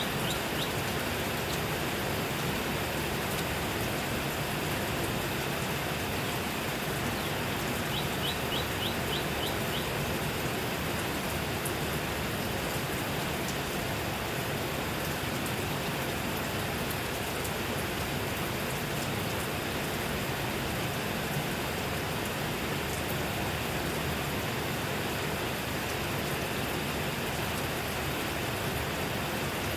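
Steady rain falling, an even wash of many drops with no breaks. A short run of high chirps comes through about eight seconds in.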